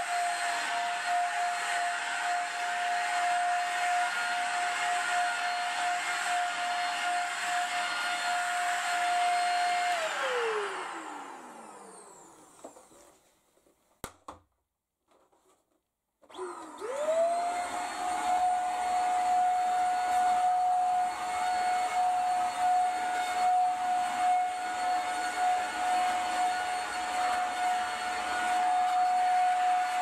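Handheld vacuum cleaner motor running steadily with a high whine. About ten seconds in it is switched off and winds down with falling pitch; after a click and a short silence it starts again, spinning up quickly to full speed, and runs steadily.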